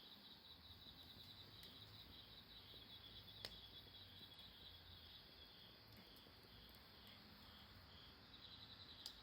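Faint, steady insect trilling made of rapid high pulses, fading a little midway and growing stronger near the end. Two short sharp clicks, one about three and a half seconds in and one near the end.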